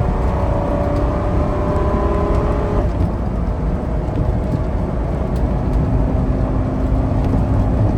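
A 2004 Damon Challenger motorhome being driven: steady low engine and road rumble inside the cab, with a whining tone that stops about three seconds in and a lower steady tone that comes in about six seconds in.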